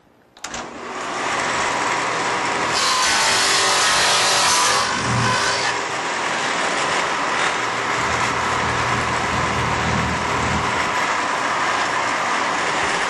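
Shopsmith Mark V table saw with a stacked dado blade starting up and running, cutting a series of grooves in a wooden board held in a jig. The harsher, brighter stretches are the blade biting into the wood.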